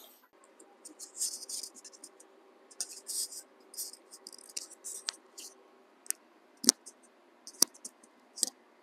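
Scratchy handling noises in short bursts, followed by five sharp clicks and knocks about a second apart, the loudest about two-thirds of the way through.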